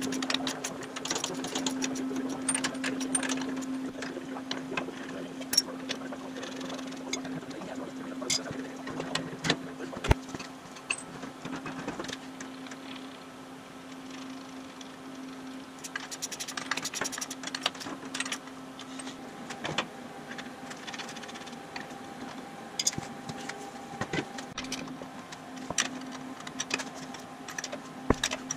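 Hand tools clinking and knocking on steel brake and wheel hardware, many irregular sharp clicks, over a steady low hum.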